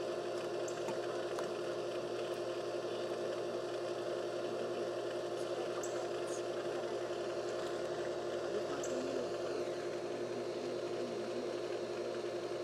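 Steady hum of a pool pump motor running, an even drone that does not change.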